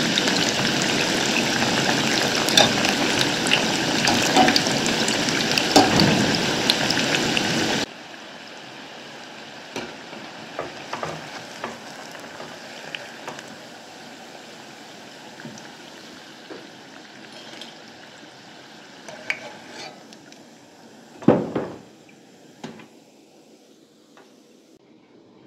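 Potato balls deep-frying in hot oil: a loud, dense sizzle with small pops. About eight seconds in it drops suddenly to a much quieter sizzle that fades away, with light clinks of a wire skimmer against the pot and one louder knock a few seconds before the end.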